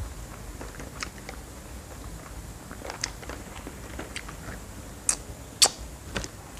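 Crunching on a crisp snack: irregular sharp crackles of chewing, with two louder crunches about five seconds in.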